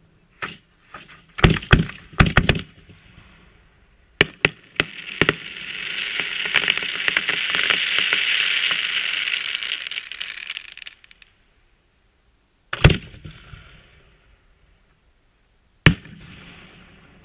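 Aerial fireworks bursting: a quick cluster of sharp bangs in the first few seconds, a few more around four to five seconds in, then a dense crackling sizzle from crackling stars lasting about six seconds. Two single loud bangs follow near the end.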